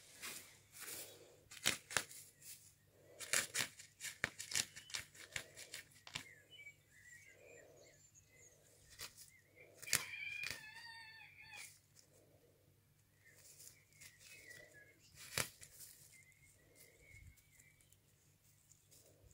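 A puppy nosing and pawing through wood-chip mulch: scattered crackles and rustles of the chips, thickest in the first half.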